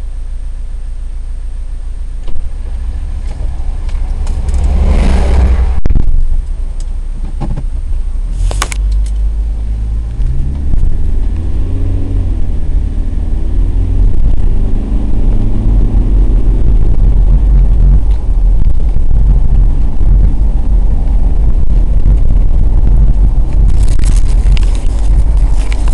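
A car driving on the road, with a steady low rumble of engine and tyres picked up by the dashcam recorder. About five seconds in a rush of noise swells and fades as an oncoming lorry passes, and from about ten seconds the engine note rises as the car speeds up.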